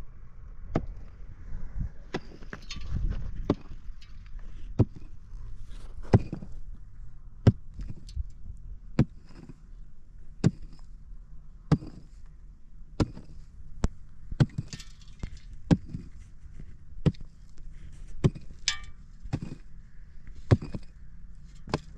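Sharp knocks repeated at a steady pace, about one every second and a half, over a low rumble.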